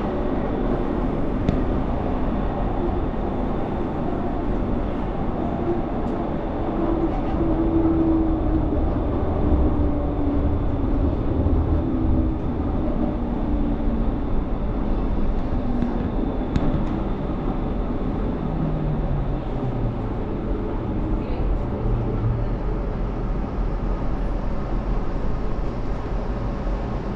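Low-floor light rail tram running along the track, heard from inside the cab: a steady rolling rumble and hum, with the motor's humming tone sliding down in pitch twice.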